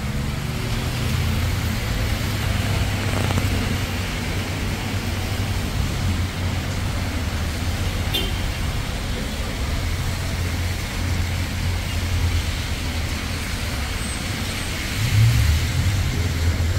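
Road traffic on a wet road: a steady low rumble of vehicles with a hiss of tyres on the wet surface, growing louder near the end as a vehicle passes close.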